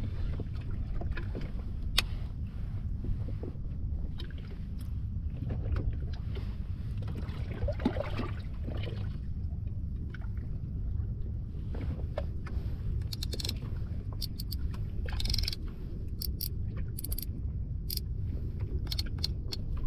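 Steady low rumble of a small Hangkai 12 hp outboard motor idling at the stern, with water moving against the boat. Light sharp clicks come from handling a baitcasting reel, mostly in the second half.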